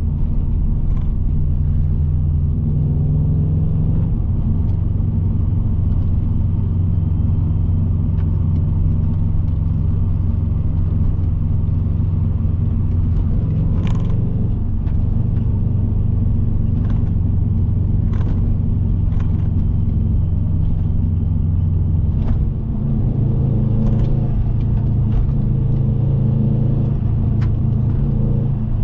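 Cabin drone of a bug-eye Subaru Impreza WRX driving on a mountain road: steady low engine, drivetrain and road noise, with a whine the driver likens to a jet engine and puts down to the front differential. The drone dips briefly and shifts in pitch about 22 seconds in.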